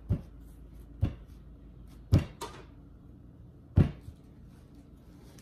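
A large sweet potato with a kitchen knife wedged in it being knocked down onto a plastic cutting board to drive the stuck knife through: four heavy thumps, the third followed quickly by a lighter knock.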